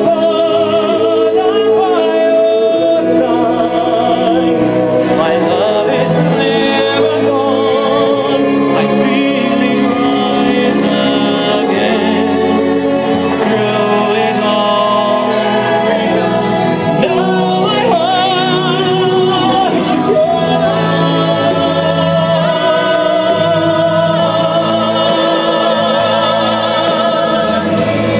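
An operatic pop ballad sung by a tenor with backing singers over instrumental accompaniment, the voices held with strong vibrato.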